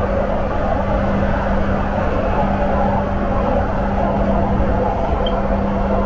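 Jabodetabek LRT train running along an elevated track, heard from inside the front car: a steady rumble of wheels on rail with a constant low hum.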